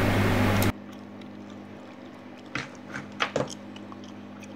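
Steady room noise with a low hum, like a running fan or air conditioner, that cuts off abruptly under a second in. A fainter steady hum follows, with a few soft clicks or knocks.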